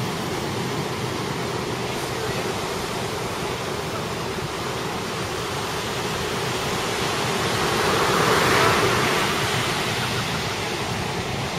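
Ocean surf breaking on the beach: a steady rushing wash that swells as a wave crashes about eight seconds in.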